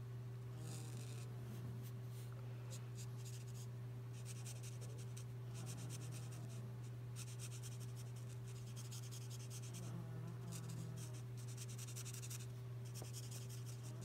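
Felt-tip nib of a L'emouchet twin alcohol marker scratching on paper in short, repeated colouring strokes that come in bursts with brief pauses. A steady low hum runs underneath.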